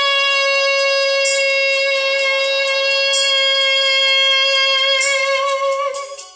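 Music: a single long note held steadily for about six seconds over a light cymbal beat, fading out near the end as a choppier rhythmic accompaniment begins.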